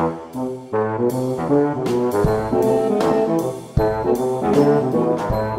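Instrumental intro music led by brass, with a bouncy tune and a steady beat.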